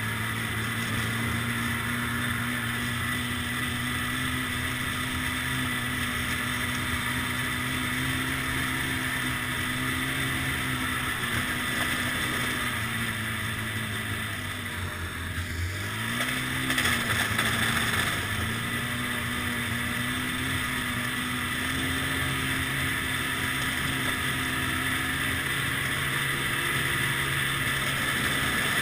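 Ski-Doo snowmobile engine running at a steady cruising speed. About halfway through it eases off briefly, then picks back up and is loudest just after, before settling back to a steady run.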